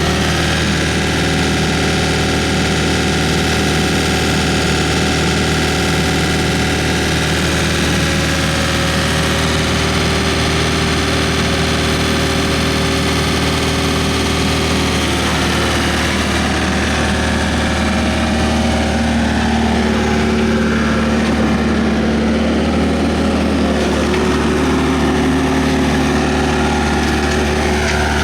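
Hyundai R555-7 excavator's diesel engine running steadily, with a layer of whining tones that shift in pitch about halfway through.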